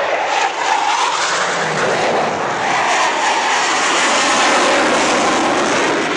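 Loud jet noise from a Blue Angels F/A-18 Hornet's twin engines as it pulls up into a steep climb, swelling to its loudest about four seconds in and then easing slightly.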